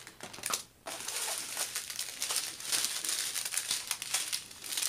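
Small clear plastic bags of diamond-painting drills crinkling and rustling as they are handled, with many sharp crackles. There is a brief gap a little under a second in.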